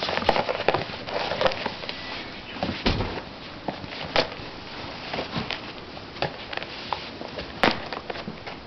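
A kitten scrabbling at a cardboard tissue box, its paws and claws scratching and rustling the box and the plastic film of its opening, with irregular taps and a few sharper knocks.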